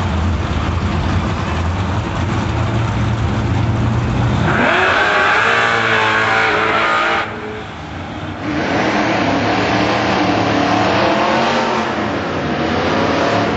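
Drag-racing cars, a 1986 Conquest TSi with its turbocharged 2.6-litre four-cylinder and a Ford Mustang: engines rumbling at the start line, then about four and a half seconds in they launch and rev hard up through the gears as they pull away down the strip. The sound dips briefly a little past seven seconds, then the climbing engine notes return.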